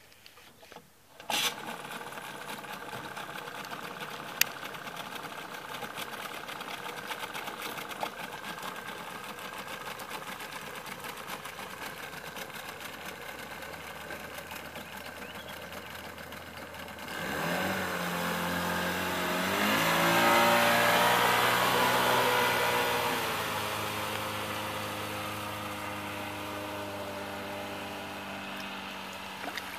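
Mercury 25XD two-stroke outboard motor running under way on a small jon boat. It comes in suddenly about a second in and runs steadily, with one sharp click a few seconds later. Later its revs rise as it speeds up, it is loudest for a couple of seconds, and then it settles into a steady drone.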